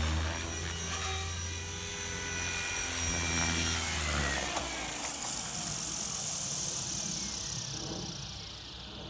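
Blade 360 CFX electric RC helicopter: rotor thrum and motor whine as it hovers low and sets down. About halfway through the low rotor beat stops and the motor and rotor spin down with a long falling whine.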